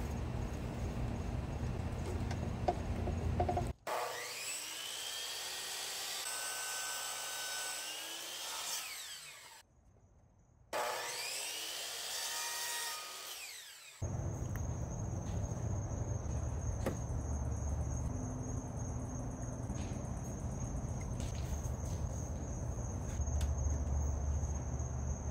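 Electric miter saw run twice: the motor whines up, the blade cuts through wood, and the whine winds down each time. Afterwards a few clicks as a bar clamp is tightened.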